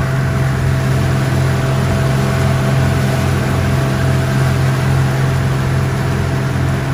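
An engine running steadily: a loud, even low hum with a regular pulsing underneath, unchanging throughout.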